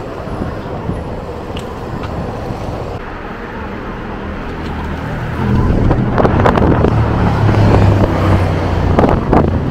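City street traffic, with a motor vehicle's engine close by that grows louder about halfway through.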